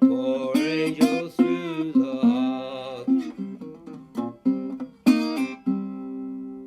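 National Resophonic tricone resonator guitar played bottleneck-style with a slide: a blues phrase of plucked notes with gliding pitches, closing on a final chord about five seconds in that rings out and fades.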